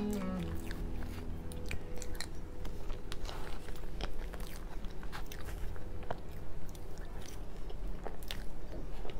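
Close-miked eating sounds: a metal spoon scooping soft layers of crepe cake, then chewing, with scattered small clicks and wet mouth sounds.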